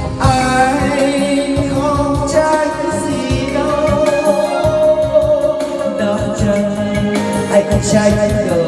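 A man singing karaoke into a microphone, his voice amplified through loudspeakers over a backing track with a steady beat and bass line. He holds long, wavering notes through most of it.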